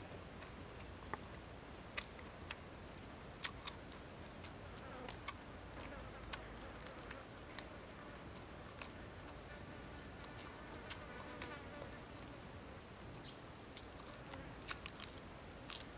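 A fly buzzing close to the microphone, most plainly around ten to twelve seconds in, over scattered soft clicks of chewing and crisp bites into lettuce leaves.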